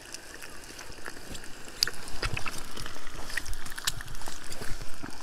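An egg frying in oil in a small pan over a camping gas burner: irregular sizzling with sharp spitting crackles, getting louder about two seconds in, over a low rumble.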